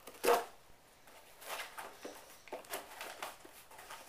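Packaging being torn open and handled: a sharp tearing noise about a third of a second in, then several short bursts of rustling and crinkling.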